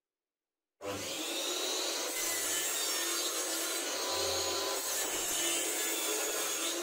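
Table saw running and cutting into a plywood board, a steady machine sound that starts abruptly about a second in.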